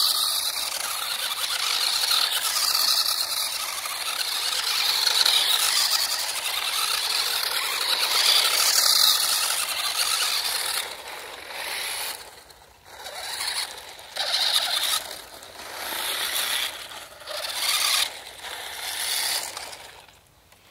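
RC drift car running, its small electric motor and gears whining and its tyres squealing as they slide on the surface. Steady for about the first ten seconds, then in a string of short on-off throttle bursts before it stops.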